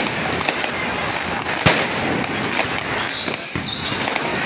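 Aerial fireworks: a sharp bang a little under two seconds in, a short whistle that rises and dips about three seconds in as a rocket climbs, and another bang at the very end, over steady background noise.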